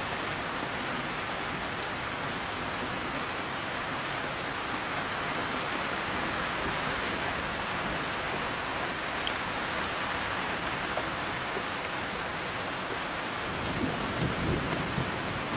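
Heavy rain falling steadily on a surface, with a low rumble of thunder swelling briefly near the end.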